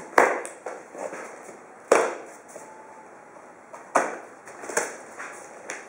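Plastic packing straps being pulled off a large cardboard box, with four sharp snaps and knocks and smaller rustles of strap and cardboard between them.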